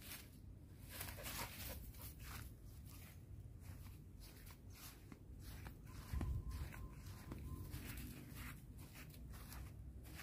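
Faint, irregular rustling and crackling of dry leaves and undergrowth, with a low thump about six seconds in.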